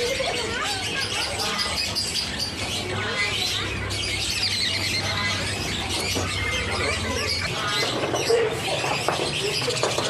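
Caged budgerigars chattering and chirping, many birds at once, in a dense, unbroken chorus of short chirps.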